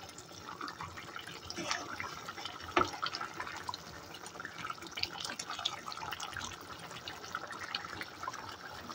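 Thick tomato stew of minced meat, green beans and potato simmering in a pan, with soft wet bubbling and popping as its juice cooks down, and now and then the click of a metal spoon against the pan as it is stirred, one louder about three seconds in.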